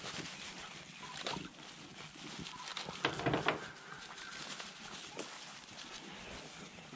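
Beagles baying while running a rabbit, with one louder bay about three seconds in.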